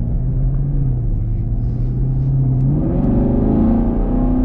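2021 Chevrolet Camaro SS's 6.2-litre LT1 V8, exhaust in track mode, running at low revs, then rising in pitch about three seconds in as the car accelerates and holding the higher note.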